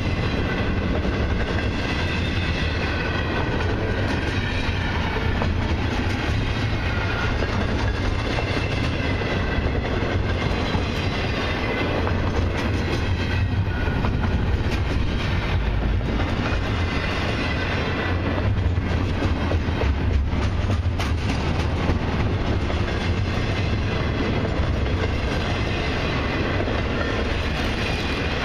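Double-stack intermodal container cars rolling past close by: a steady, heavy rumble of steel wheels on rail, with clicks as the wheels cross rail joints.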